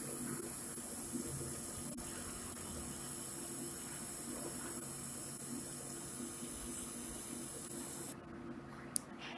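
UV laser marking machine running while it marks glass: a steady hiss over a low hum. The sound drops away suddenly about eight seconds in, and a single sharp click comes near the end.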